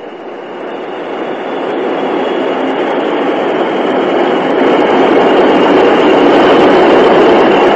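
A train approaching and passing, its running noise growing steadily louder.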